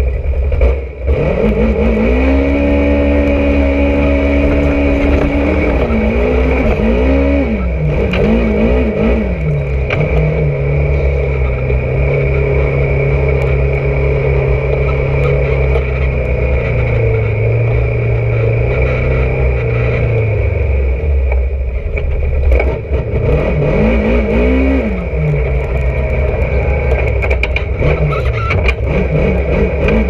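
Polaris RZR side-by-side engine running under throttle, heard from the cab. The revs climb about two seconds in, hold, then rise and fall a few times before settling to a steady lower note. Near the end they rise and fall again, over a heavy low rumble and some rattling.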